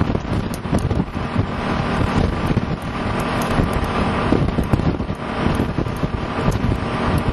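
Wind buffeting the microphone in an open cab, over the steady running of a 1969 Hahn fire truck's Detroit Diesel 6-71 two-stroke inline-six at highway speed.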